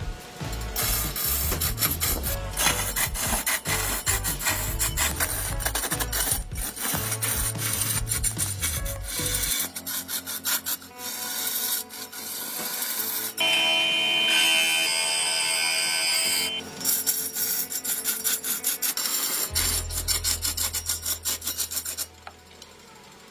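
A hand-held turning tool scraping and cutting into a large log spinning on a wood lathe, giving a rough, continuous rasping. A high ringing tone sounds for a few seconds past the middle, and the cutting goes quieter near the end.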